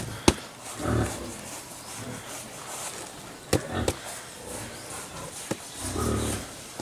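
Sharp metallic knocks of a steel flat bar against a motorcycle wheel rim while a tyre is levered back on over the inner tube, with low grunts in between.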